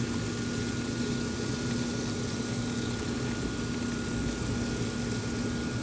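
Yoder YS640 pellet grill running at cooking temperature, its combustion fan giving a steady hum with a constant low tone and a fainter higher whine.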